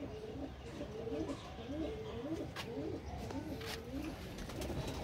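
Domestic pigeons cooing: a steady run of low coos, one after another, that thins out near the end.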